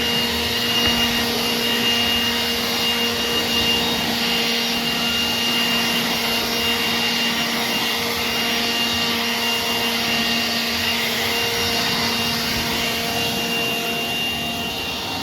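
Electric power sander running steadily against the metal stairs, its motor holding a constant pitch over a rushing hiss.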